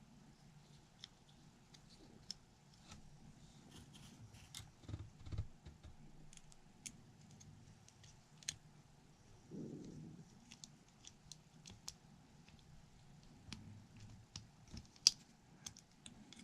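Faint, scattered clicks and small metallic taps of a Glock trigger spring being worked onto the trigger assembly by hand, a few sharper clicks standing out among them. There is a brief soft rustle near the middle.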